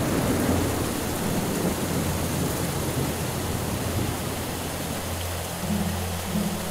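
Steady rain falling, over a low steady drone. A few low notes come in near the end.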